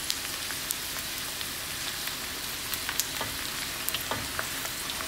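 Pork back fat chicharon deep-frying in a wok of hot rendered pork lard: a steady sizzle with scattered sharp pops and crackles.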